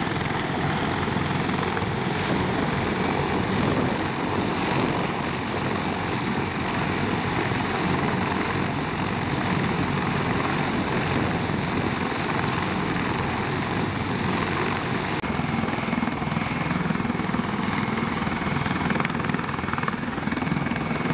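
CH-53 heavy-lift helicopter running on the ground with its rotors turning: a loud, steady rotor and turbine noise, with a faint high turbine whine showing through near the end.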